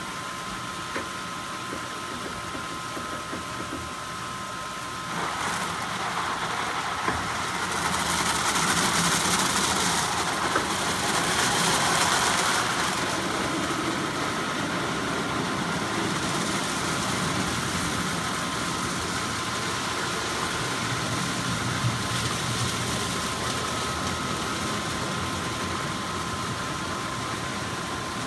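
Ryko Soft Gloss Maxx soft-cloth car wash running over a car: spinning brushes and water spray make a steady hiss, over a constant machine whine. About five seconds in the hiss grows louder, stays loudest for several seconds, then eases back a little.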